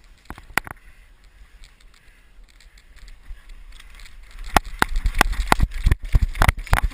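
Footsteps and clattering gear as a player moves quickly on foot, a fast irregular string of knocks with a low rumble that starts about halfway through. Before that there are only a few faint clicks.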